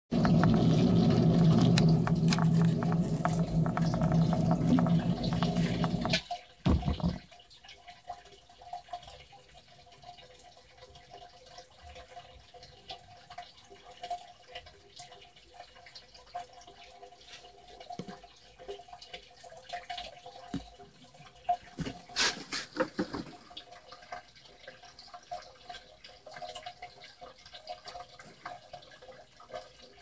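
Sump pump running with a steady hum for about six seconds, then shutting off with a short thump. After that, water trickles and streams into the sump pit from the French drain pipe, with a few louder knocks about three-quarters of the way through.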